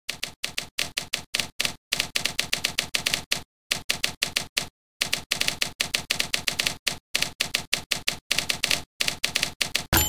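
Sampled typewriter key clacks from a typewriter-themed word processor, one clack per key typed. They come in quick runs of several a second, broken by brief pauses.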